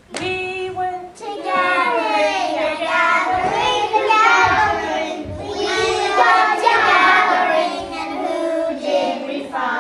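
A group of young children singing a song together, with a woman leading them.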